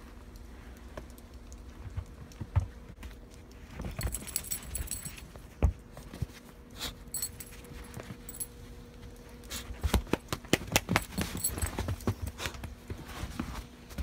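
Footsteps crunching in snow in uneven clusters, thickest in the last few seconds, with a light metallic jingling among the steps.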